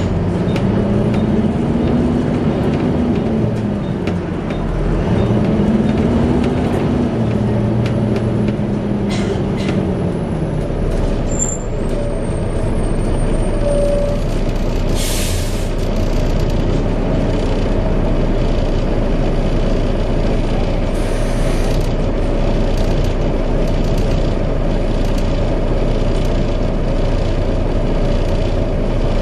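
Volvo B7TL bus running with its engine cooling fan giving a steady hoover-like drone. The engine pitch rises and falls twice in the first ten seconds, and a short hiss of air comes about halfway through.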